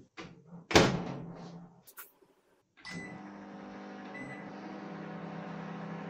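Microwave oven door shut with a thump about a second in, a sharp click, then from about three seconds in the oven starting up and running with a steady electrical hum. The oven runs but does not heat, a fault later traced to a blown high-voltage fuse.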